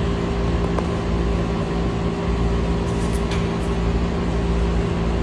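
Steady motor hum with a few constant low tones over an even rushing noise, holding level throughout.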